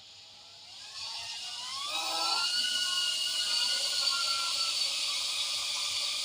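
Micro FPV drone's small electric motors and propellers spinning up. Several whines rise in pitch from about a second in, then settle into a steady high whine that grows louder about two seconds in.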